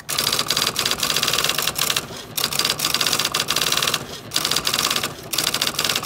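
IBM Selectric electric typewriter typing fast runs of characters, its typeball striking the paper in a rapid clatter, with brief pauses about two, four and five seconds in.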